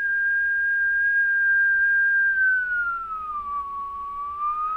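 A person whistling one long, almost pure note, close to a sine wave. It holds steady for about two seconds, then slides down in pitch and starts to rise again near the end.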